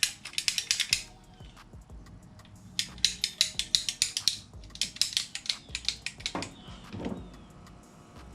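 A ratchet clicking in three quick runs of rapid ticks, with short pauses between, as something is tightened, followed by a couple of softer handling rubs near the end.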